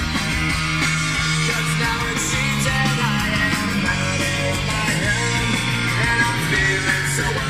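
Rock music with guitar playing from the car's factory four-speaker AM/FM cassette stereo.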